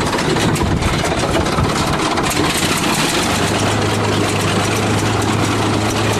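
Bulldozer's diesel engine idling steadily. A steady low hum comes in about halfway through.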